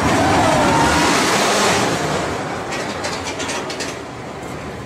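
Roller coaster train running along its track: a loud rumble with a faint wheel squeal that fades after about two seconds, then a quick run of clacks.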